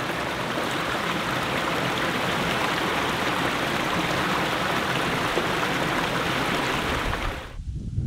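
Shallow rocky stream running over stones into a pool: a steady rush of water that cuts off abruptly near the end.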